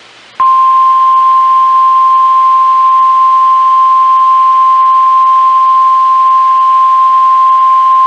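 NOAA Weather Radio's 1050 Hz warning alarm tone: one loud, steady, unbroken beep that cuts in over faint radio hiss about half a second in. It is the alert signal that comes before a spoken emergency message.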